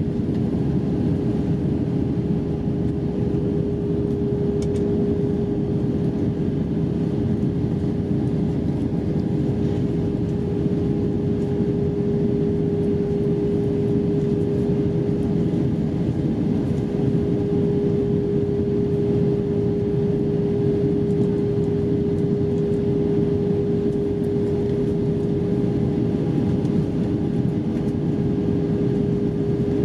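Airbus A320 cabin noise in flight: a steady rush of engine and airflow heard from a window seat over the wing, with one steady hum-like tone running through it.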